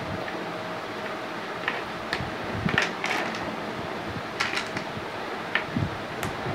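Small plastic flower-shaped interlocking blocks clicking and rattling as they are pressed together by hand, in scattered short clicks, several close together around the middle, over a steady background hiss.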